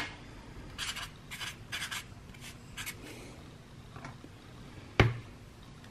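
Felt-tip marker writing on cardboard: a run of short scratching strokes, followed about five seconds in by a single sharp knock.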